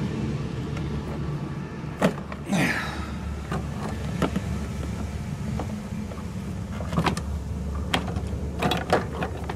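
Scattered light metallic clicks and a short scrape of needle-nose pliers gripping and working the AC orifice tube out of its line, over a steady low hum.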